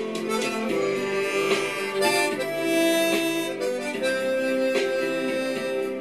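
Background music: a harmonica playing a slow melody of held notes, several sounding together like chords. It is the uploader's own amateur harmonica rendition of a Korean trot or ballad song.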